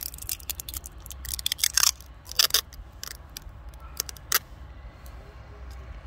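Hands handling a plastic LED side-marker lamp and its plastic wrapper: a scatter of sharp crinkles and clicks, loudest near the middle, with the last click about four and a half seconds in. A steady low wind rumble on the microphone lies under it.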